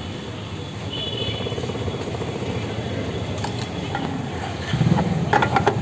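Petrol dispenser running as fuel flows through the nozzle into a scooter's tank: a steady hum, with a few sharp clicks about three and a half seconds in and a louder stretch of clicks near the end.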